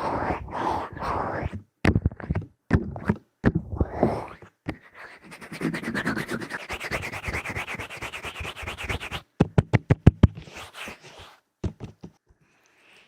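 Fingers rubbing and massaging the ears of a binaural ASMR microphone, close and scratchy. The rubbing comes in uneven strokes, then a stretch of fast, even rubbing, then a quick run of sharp, loud strokes, and it fades out near the end.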